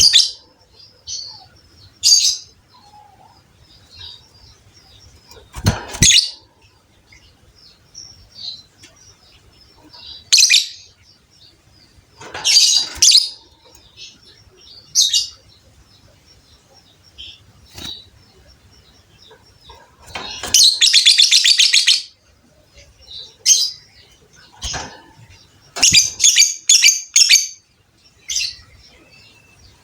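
Lovebird giving sharp, high chirps at irregular intervals, with one rapid trilling chatter about a second and a half long roughly two-thirds of the way through, and a quick run of chirps near the end. A single knock sounds about six seconds in.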